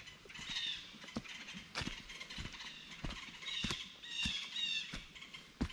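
Short, high chirps or squeaks at irregular intervals, with scattered light clicks or knocks in between.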